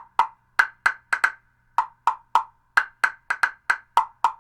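Wood block struck rapidly in an uneven, improvised rhythm: about sixteen sharp, dry knocks that alternate between a lower and a higher pitch.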